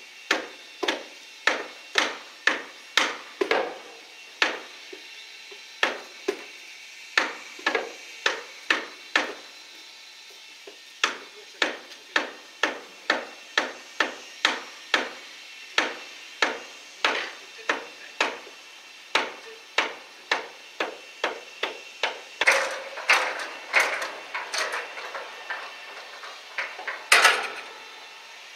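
Hammer blows struck over and over, about two a second, with a short pause around ten seconds in and a quicker, more jumbled run of blows near the end.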